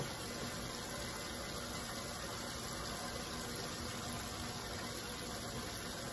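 Steady, even hissing background noise with a faint low hum, unchanging throughout; no distinct events.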